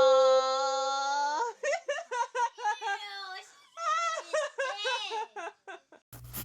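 A young child's voice: one long held high 'aaah', then a run of short giggles and squeals. Near the end, a short burst of hiss with a low hum cuts in.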